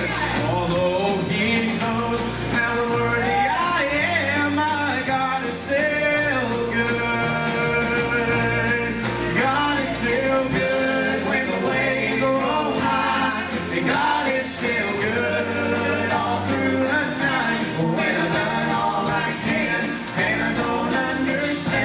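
Live gospel worship song: a woman singing into a microphone, backed by strummed acoustic guitar and electric bass, with the bass notes changing every second or two.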